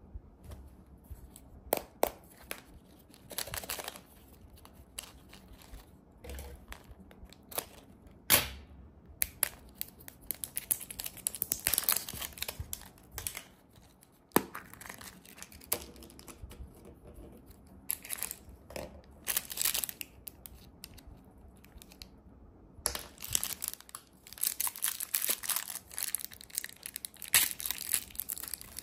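Hard plastic toy capsule balls handled and twisted open, giving scattered clicks and knocks. Near the end a plastic sweet packet crinkles and tears open.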